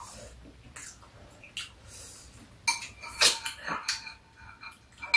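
Metal spoons clinking and scraping against ceramic bowls during a meal: a scatter of short sharp clinks, a few with a brief ring, the loudest about three seconds in.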